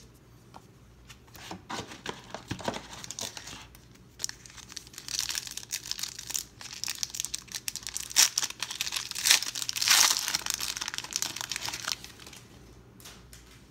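A 1992 Pro Set football card pack's wrapper crinkling and tearing as it is ripped open by hand. The crinkling is loudest from about five to eleven seconds in, then dies down.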